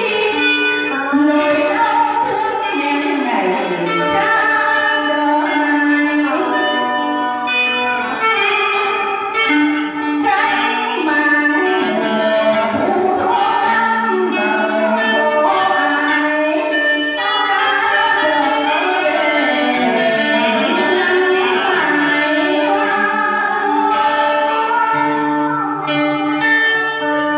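Music with a singing voice over instrumental accompaniment, the voice sliding between held notes.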